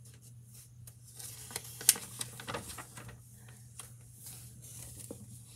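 Pages of a large picture book being turned and handled: soft paper rustling and light taps, with one sharper click about two seconds in, over a faint steady hum.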